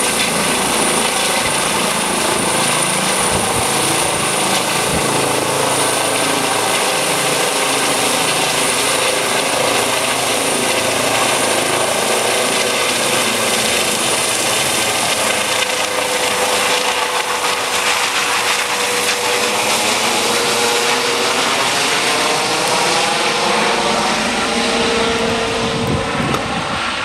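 Eurocopter EC135 air-ambulance helicopter climbing away after take-off: steady rotor and turbine noise with a high whine that fades. In the second half a tone slowly falls in pitch and the noise takes on a sweeping, phasing sound as the helicopter draws off.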